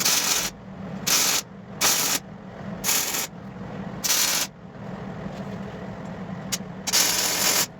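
Welder laying a run of short tack welds on steel plate: six separate crackling bursts, each under a second, with a longer one near the end, over a steady low hum.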